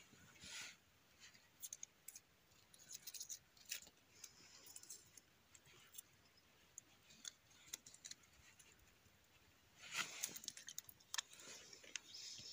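Near silence with faint, scattered clicks and rustling, and a brief louder burst of rustling and clicks about ten seconds in.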